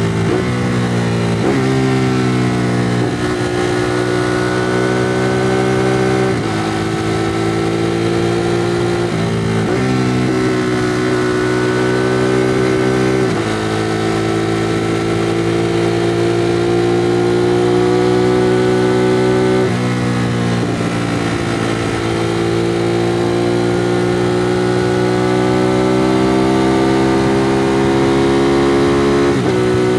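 Ducati Monster 821's 821 cc L-twin engine through its stock exhaust, ridden under way. The revs climb steadily in each gear and drop sharply at each gear change, about seven times.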